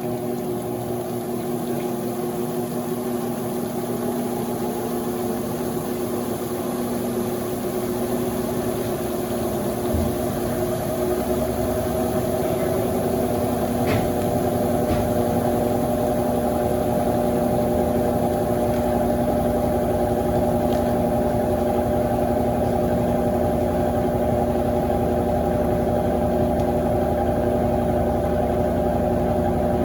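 Electrolux LF90 top-loading washing machine draining, its drain pump humming steadily. A lower rumble builds from about ten seconds in, and the sound gets slightly louder.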